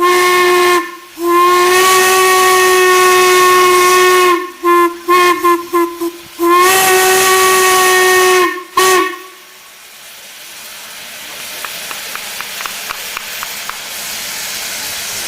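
Steam whistle blowing a single steady note with overtones: two long blasts, a quick run of about five short toots, another long blast and a last short toot. It shuts off a little under ten seconds in, leaving a steady hiss of steam that grows slowly louder.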